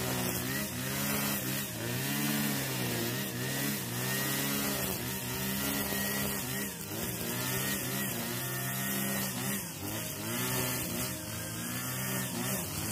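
45 cc two-stroke brush cutter running at cutting speed with its nylon line head slicing through thick grass. The engine note sags and picks up again about once a second as each sweep of the line bites into the grass.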